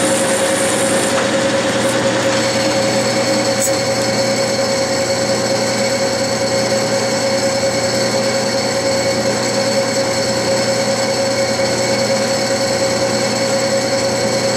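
Clausing metal lathe running at a spindle speed of about 700 rpm with a steady whine, taking a slow-feed trial cut on a brass bushing. A high hiss of the cut drops away about two seconds in, and the lathe runs on steadily.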